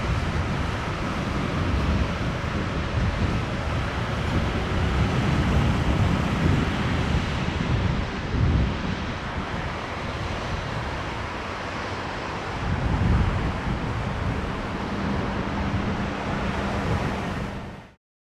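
Jet engines of a landing Airbus A320 airliner, a steady rumble that swells and eases, with wind buffeting the microphone. The sound cuts off suddenly near the end.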